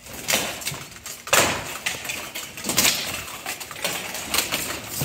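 Steel plate armour clanking and rattling during full-contact armoured sparring, with several sharp metal hits of weapon on armour, the loudest a little over a second in.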